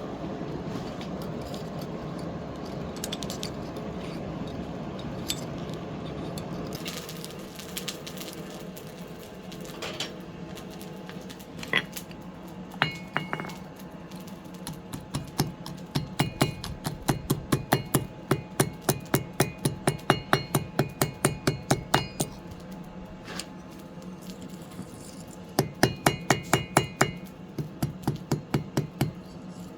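Blacksmith's hammer striking steel on an anvil, each blow ringing. There are a few scattered blows, then a long run of quick blows at about three a second, a pause, and another short run near the end. A steady hum sits under the first several seconds.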